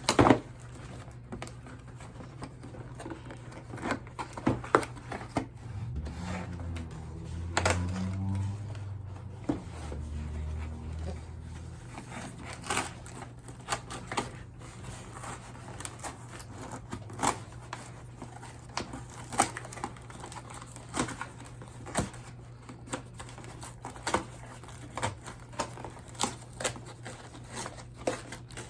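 Packaging of a ring light and phone stand being handled and opened: irregular clicks, taps and crinkling of box and plastic, over a steady low hum.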